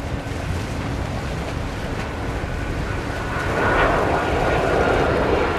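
Boeing 767-300ER airliner's jet engines on landing approach: a steady roar over a low rumble, swelling louder about three and a half seconds in, with a thin steady whine.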